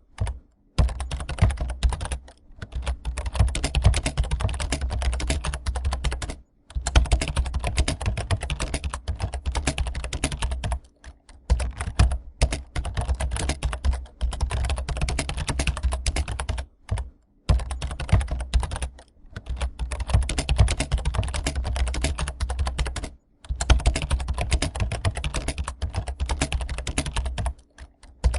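Fast, continuous typing on a computer keyboard: key clicks packed closely together. The clicks stop for brief moments every few seconds.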